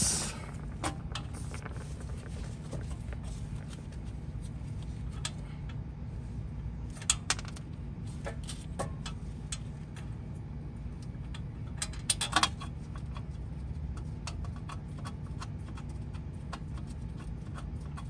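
Light metallic clicks and clinks of hub bolts and tools being handled while a new wheel hub bearing is fitted, with short clattering bursts about seven seconds in and again around twelve seconds, over a steady low hum.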